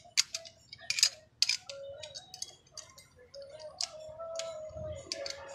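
Irregular sharp metal clicks and taps of a T-handle socket wrench and bolts against a satellite dish's metal LNB-arm bracket as nuts are fitted, with a faint wavering tone in the background.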